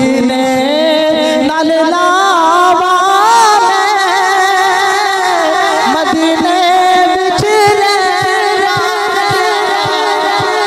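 A man singing a Punjabi naat verse in one long, drawn-out melismatic phrase, the held notes wavering up and down, stepping up in pitch about two seconds in.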